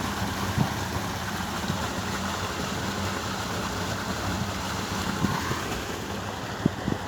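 Wind blowing across a handheld phone's microphone, a steady rushing noise.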